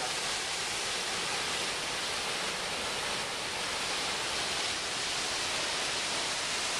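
Creek water cascading over rocks: a steady, even rush of whitewater.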